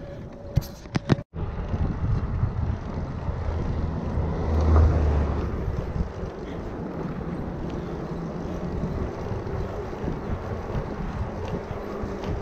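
Wind buffeting the microphone over the rolling noise of a recumbent trike's fat knobbly tyres on asphalt. A few sharp clicks come about a second in, then a brief gap, and a low rumble swells about five seconds in.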